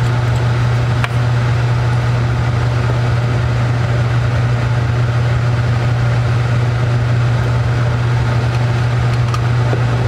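Flow hood's blower fan running with a steady low hum, with a light click about a second in.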